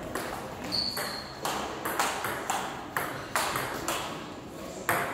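Table tennis rally: the ball clicking off the bats and the table in a quick run of sharp ticks, about two a second, with a longer gap before the last one near the end. A brief high squeak comes about a second in.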